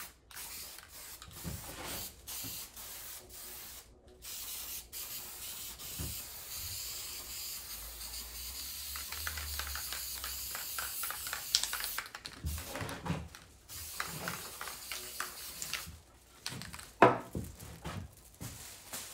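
Aerosol spray adhesive (3M Super 77) hissing out of the can in long passes, with a brief pause about four seconds in. After about twelve seconds it gives way to the crinkling and crackling of a Mylar emergency blanket being handled, with one loud crinkle near the end.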